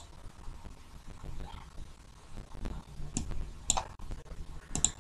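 Several sharp clicks at uneven intervals from the computer as the drawing app is worked, over a faint low hum.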